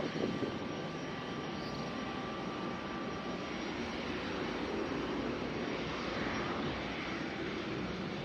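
Jet aircraft engines running, a steady even rush of noise that grows slightly louder around the middle.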